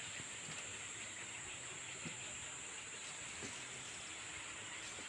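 Faint, steady outdoor ambience: an even hiss with a constant high-pitched tone over it, broken by a few faint, short sounds.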